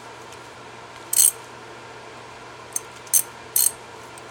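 Short metallic clinks from a hex-bit (Allen-head) socket and ratchet being handled: one sharp click about a second in, then three close together near the end.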